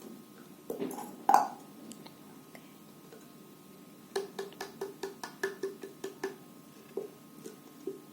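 Light knocks and clinks on a cup while slime is being made: one louder knock with a short ring about a second in, then a quick run of about a dozen light taps, roughly five a second, and a couple of single taps near the end.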